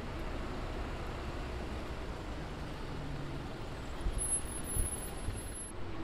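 A city bus running past in street traffic, a steady low engine and road rumble, with a few low bumps in the second half.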